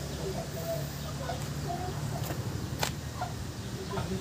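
Background ambience: scattered short chirps over a steady low hum, with a sharp click a little under three seconds in.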